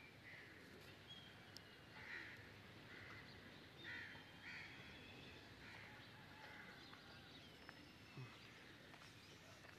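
Faint outdoor bird calls: a run of short calls about a second apart, with a few thin whistled notes, over a quiet background hush.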